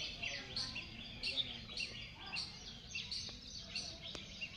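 A chorus of many small birds chirping at once, short overlapping calls repeating several times a second, with a couple of faint clicks.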